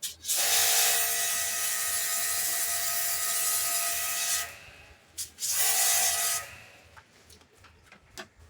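Pressure washer spraying a bicycle chain in two bursts, one of about four seconds and a shorter one under a second: a loud hissing jet over the steady whine of its pump motor. A few sharp clicks follow.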